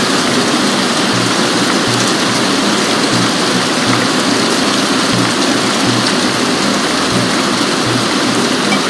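Steady, heavy rain falling: a dense, even hiss of drops hitting surfaces that does not let up.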